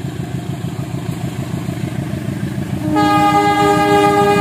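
CC 203 diesel-electric locomotive running with a steady low rumble as it approaches, then about three seconds in its horn starts abruptly and is held.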